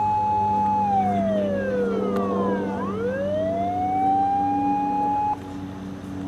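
Electronic siren of a Japanese fire-command vehicle sounding the slow fire wail. It holds a high tone, slides down, then glides back up and cuts off sharply about five seconds in. A steady low hum carries on underneath.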